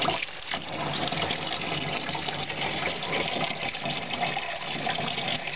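Tap water running steadily from a faucet into a utility sink and over a wet cat being rinsed.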